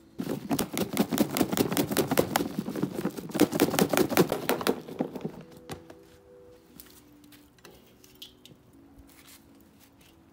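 Dry, crusty bread crunching and crackling in quick, dense strokes for about five seconds, then a few scattered clicks.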